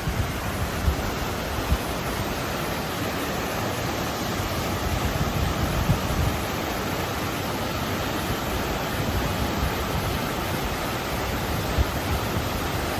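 Steady rush of a mountain river running over rocks, with short low buffets of wind on the microphone.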